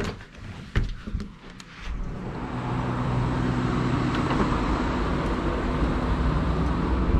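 A few clicks and knocks, then a steady low rumble and hum of outdoor road traffic that starts about two seconds in and holds.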